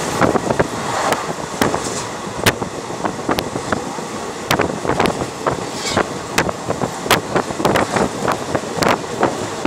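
Passenger train running at speed, heard from beside a carriage window: a steady rumble and rush of air with frequent sharp clicks and clacks of the wheels over rail joints.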